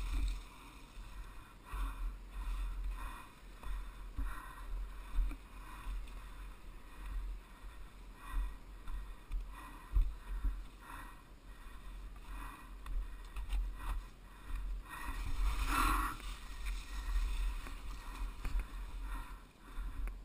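Snowmobile riding over snow and heather, heard muffled through a GoPro Hero2's sealed housing: a constant deep rumble with irregular knocks and rattles from the bumps. A louder rushing swell comes about sixteen seconds in.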